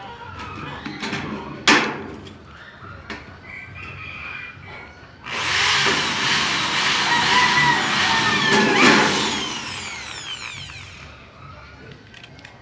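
Corded electric drill boring a rivet hole through the sheet-metal seam of a gutter corner: a loud whirring grind that starts suddenly about five seconds in and runs for about six seconds before dying away. Earlier, about two seconds in, a single sharp snap from the hand riveter setting a pop rivet.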